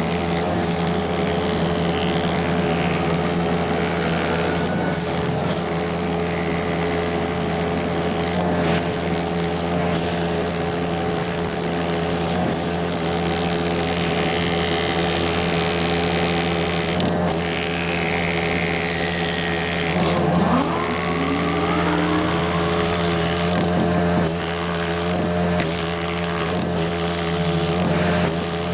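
Heavy construction machinery's engine running steadily, with a brief rising whine about twenty seconds in.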